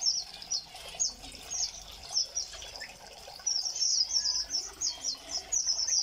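Small birds chirping: short, high, downward-slurred chirps, about two a second at first, then a quick run of them from a little past halfway.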